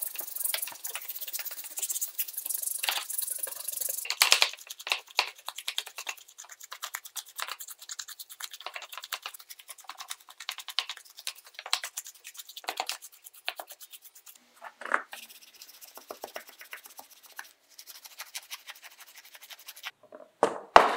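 Stiff-bristled brush scrubbing the plastic housing of a power tool in soapy water: quick, repeated scratchy strokes. A single louder knock comes near the end.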